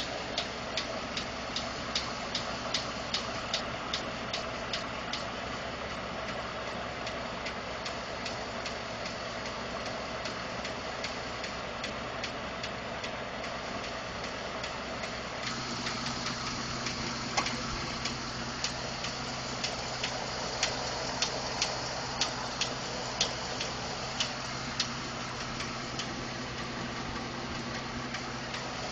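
2012 Ford F-150's 5.0-litre Coyote V8 idling with a sharp, regular ticking knock, about two to three ticks a second; a steadier hum joins the engine sound about halfway through. The owner has been told the knock is normal engine noise, from the injectors or fuel pump.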